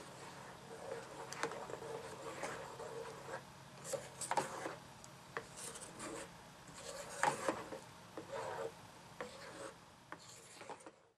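Wooden spoon scraping and knocking against the bottom and sides of a metal saucepan while stirring thick, thickening fig jelly, in irregular strokes.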